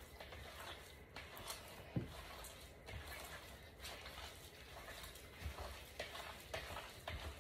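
Fingers kneading a raw ground turkey meatloaf mixture in a plastic bowl: faint, irregular wet squishes and squelches, with one sharper knock about two seconds in.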